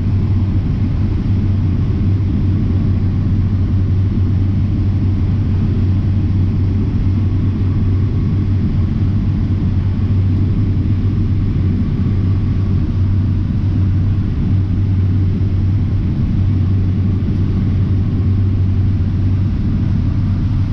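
Steady low drone of a John Deere X9 1000 combine, heard from inside its cab, as it harvests corn while unloading grain on the go.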